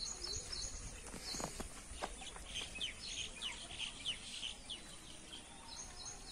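Birds chirping: quick runs of high calls at the start and near the end, and a dense stretch of chirps from about two to five seconds in.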